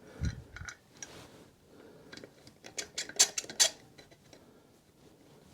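Metal clicks and clinks of the rear wheel bolts on a BMW R1200GS being fitted and turned in by hand, with a low thump about a quarter second in and a quick run of sharper clinks a little past halfway.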